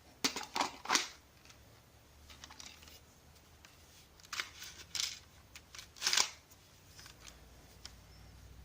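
Sharp plastic clicks and snaps from a Lego brick M110 sniper rifle replica being worked and fired: three quick ones right at the start, a few more about halfway, and a loud snap near the end.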